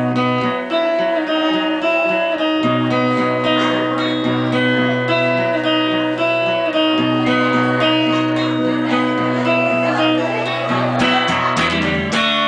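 Instrumental break of a song played live, guitar to the fore over a steady bass line, without singing.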